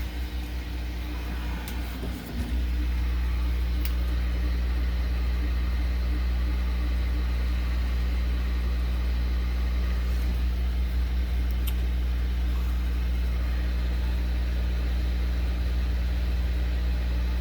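Heat gun blowing hot air in a steady hum onto a laptop motherboard, reflowing low-melt solder to lift off a left mouse button switch; it gets louder about two and a half seconds in.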